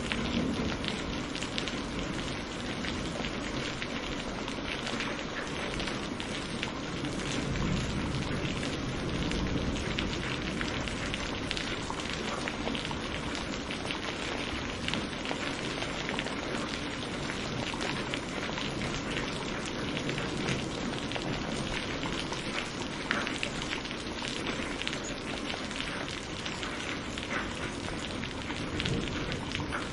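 Steady rain with many fine drop hits. A low rumble swells in the low end about a quarter of the way in, likely distant thunder.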